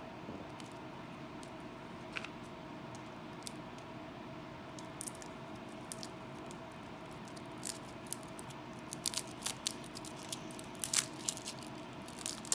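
Sample decks of game cards being unwrapped and handled: scattered clicks and crinkles that grow busier in the last few seconds, over a steady low room hum.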